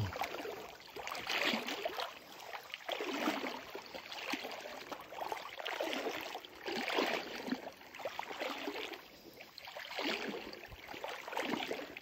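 Water splashing and sloshing as a young laika swims through shallow water. The splashing swells and fades about once every second or two, in time with its paddling.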